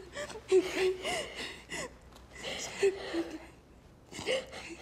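A teenage girl crying: short, breaking sobbing cries with gasping breaths between them.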